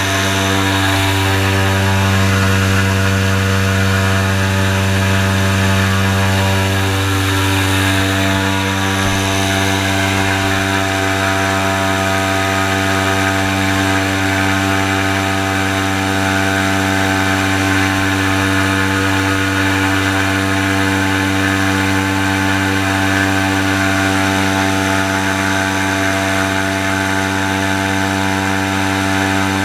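Airboat engine and its large air propeller running steadily as the boat cruises: a loud, constant, even-pitched sound with a strong low hum.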